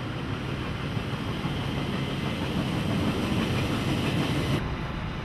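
Passenger train running past on the tracks: a steady noise of wheels on rails that builds up, with its hiss cutting off abruptly about four and a half seconds in.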